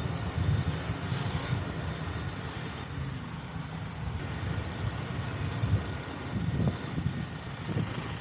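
A vehicle travelling along a road: a steady low rumble of engine and road noise.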